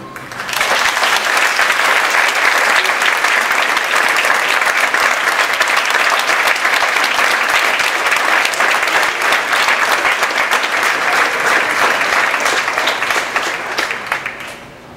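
Theatre audience applauding, a dense steady clapping that starts as the orchestra stops and dies away near the end.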